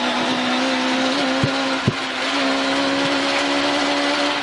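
Rally Ford Escort's 2.0-litre Cosworth BDG four-cylinder engine held at high revs flat out down a straight, a steady loud note heard from inside the cabin, its pitch stepping slightly higher about two seconds in. Two sharp knocks cut through it about a second and a half and two seconds in.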